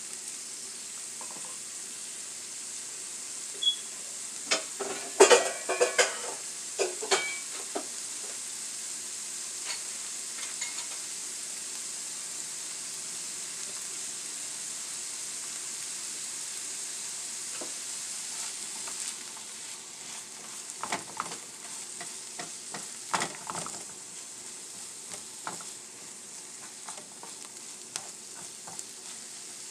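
Diced onion, carrot and jalapeño sizzling steadily in oil in a nonstick frying pan, with a silicone spatula scraping and stirring the vegetables against the pan in two spells, about five seconds in and again past twenty seconds.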